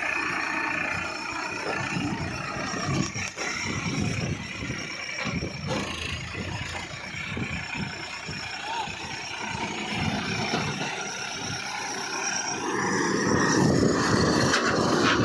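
Diesel engine of farm machinery working during loading of a tractor trolley, running steadily, then growing louder about thirteen seconds in.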